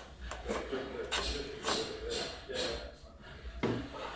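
Hand tools working wood: a series of short scraping strokes, irregularly spaced about half a second to a second apart.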